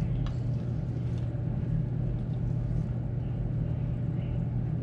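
Steady low hum of a running electric floor fan, with a couple of faint clicks near the start as food is picked off a ceramic plate.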